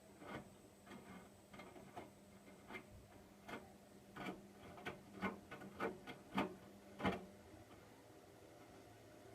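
Hotpoint washing machine mid-wash: the drum turns with a run of irregular clicks and knocks, and a steady low motor hum stops about three-quarters of the way in.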